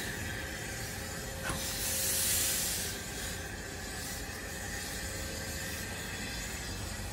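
Steam locomotive hissing steam over a low rumble, with one loud, long hiss about two seconds in and fainter hisses later.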